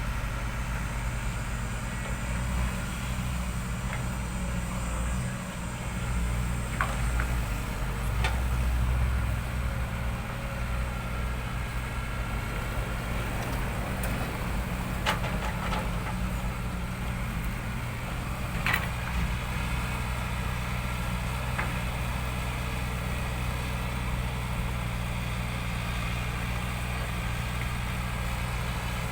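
Heavy diesel engine of an excavator running steadily, swelling for a few seconds, with a few sharp metallic knocks.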